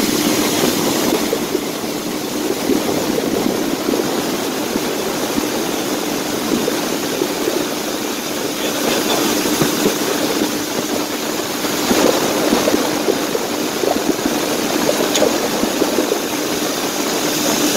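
A boat's outboard motor running steadily at one pitch, over a constant rushing noise.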